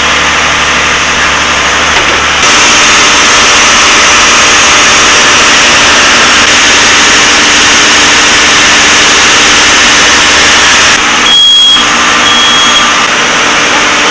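Cummins diesel engine running steadily at low throttle in forward gear, heard up close in the engine room, turning the controllable-pitch propeller slowly. Two short high beeps near the end.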